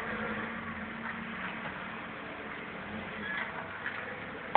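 Steady background hum and hiss, with a low drone in it that fades out about halfway through.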